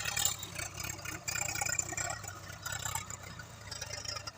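Heavy diesel engine running steadily at low revs, with some irregular rattling over it.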